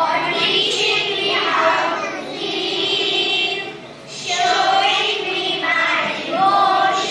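A group of children singing a song together in unison, with a short break between phrases about four seconds in.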